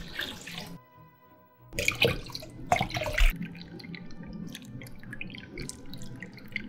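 Liquid gelatin mixture poured from a glass measuring cup into small silicone molds: two splashing pours, the second ending about three seconds in, then a fainter trickle. Light background music plays throughout.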